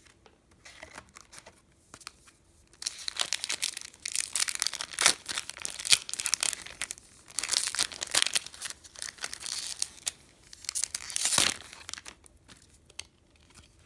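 Foil trading-card booster pack wrapper crinkling as it is handled and pulled apart, then a sharp rip as the pack tears open near the end.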